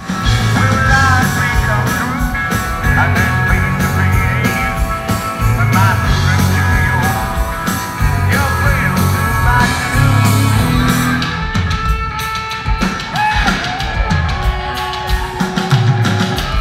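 Live rock band playing loudly: drum kit, a pulsing bass line and guitar, with voices singing or yelling over it. The cymbals and high end thin out about eleven seconds in.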